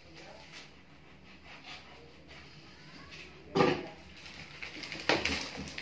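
Plastic wrap and tape on a fishing-rod tube being cut and picked at by hand, making faint rustling and scraping. A single loud, brief sound comes about three and a half seconds in, and livelier handling noise follows near the end.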